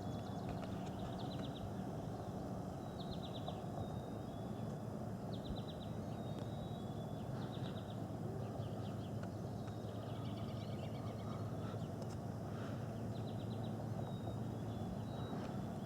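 A songbird repeating a short high trill every second or two, over a steady low drone.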